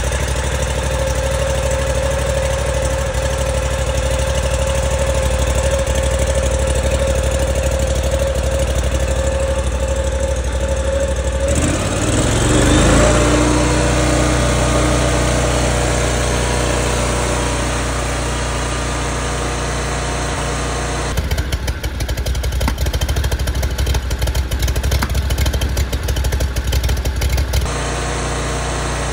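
Briggs & Stratton Vanguard 37 hp EFI V-twin on a zero-turn mower running steadily just after its high-pressure fuel pump was replaced. About twelve seconds in the engine speed changes and it then settles at a new steady note. From about 21 s to about 28 s a rapid crackle runs over the engine.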